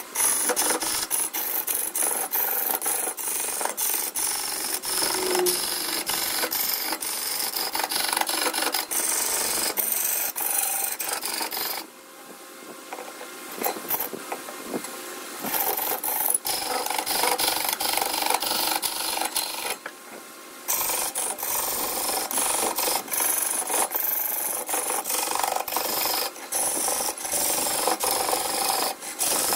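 A turning tool cutting and scraping redwood as it spins on a lathe: a loud, coarse rasping hiss full of fine crackles. It drops away briefly twice, about twelve and twenty seconds in.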